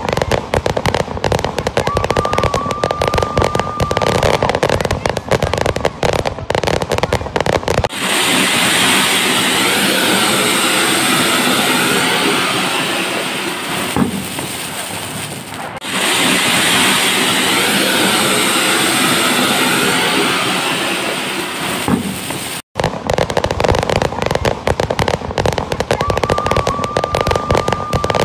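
Fireworks: dense rapid crackling and popping, then a long steady hiss from a ground spark fountain (flower pot) spraying sparks, then rapid crackling again. A short high whistle rises out of the crackle twice.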